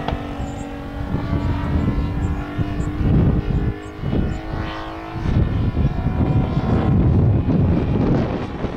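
Two-stroke 52cc Taurus gas engine of a large RC Extra 330L aerobatic plane running in flight overhead, a steady propeller drone for the first half, with an uneven low rumble that grows louder in the second half.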